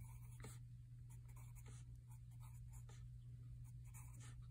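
Graphite pencil on graph paper, faintly scratching a run of short strokes as small tick marks and numbers are written, with a steady low hum underneath.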